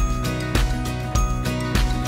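Instrumental background music with a steady beat a little under twice a second, sustained low notes and high ringing notes over it.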